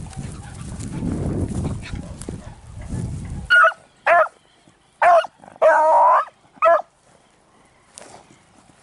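Beagle pups barking on a rabbit's scent: about five sharp barks starting about three and a half seconds in, the fourth drawn out into a longer bay. Before them there is a low rumble on the microphone, which stops suddenly.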